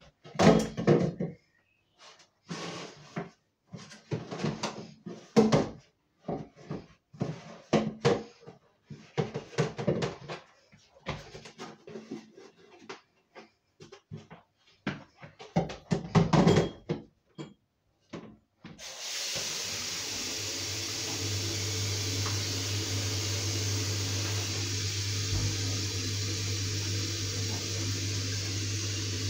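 A small plastic bin and a plastic bin liner handled at a bathroom sink: irregular knocks, clatters and rustles with short pauses. About two-thirds of the way in the tap is turned on and water runs steadily into the sink and bin, with a low steady hum under it.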